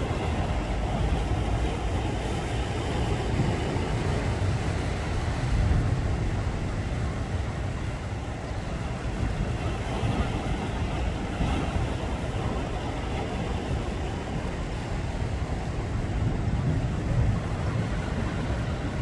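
Steady wind noise buffeting the microphone over the rush of sea water.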